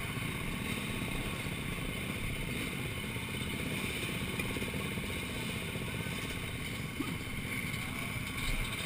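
Motocross bike engines running at idle, a steady, fast low pulsing.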